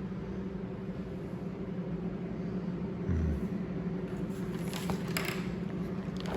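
A steady low mechanical hum, with a short higher-pitched noise about five seconds in.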